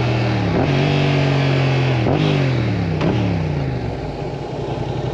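2024 Yamaha R7's 689 cc parallel-twin engine on the move. The engine note holds steady, then falls twice after short sudden jumps in pitch about two and three seconds in, as the bike slows. It settles into lower, quieter running near the end.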